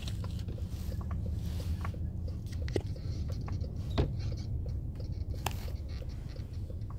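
Packaging being handled: scattered light clicks and scrapes over a steady low rumble, with one sharper knock about four seconds in.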